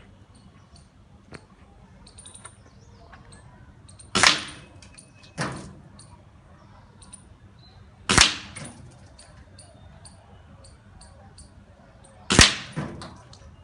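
Three shots from a Benjamin Marauder pre-charged pneumatic air rifle, about four seconds apart, each a sharp crack followed shortly by a smaller second sound.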